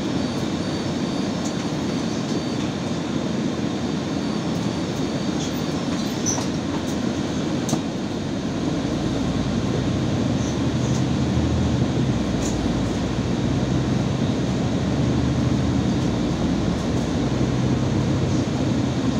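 Irisbus Citelis 12 m city bus under way, heard from inside the passenger cabin: steady engine and road noise with a few light rattles. A low engine hum comes up and the noise grows louder about ten seconds in.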